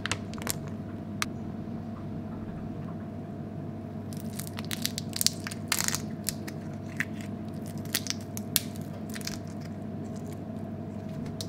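Raw kuruma prawn's shell crackling and crunching in irregular bursts as it is peeled by hand, over a steady background hum.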